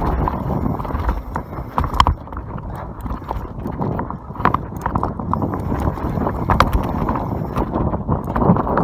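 YT Capra full-suspension mountain bike descending a dirt trail at speed: a steady rumble of tyres on loose dirt with the bike rattling and clicking, and sharp knocks at about 2, 4.5 and 6.5 seconds as it hits bumps.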